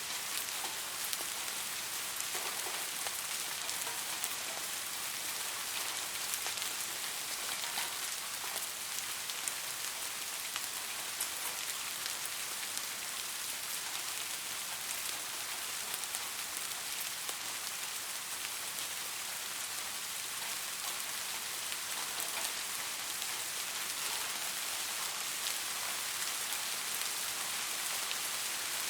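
Steady rain falling on a surface: an even hiss strongest in the highs, with many small drop ticks scattered through it.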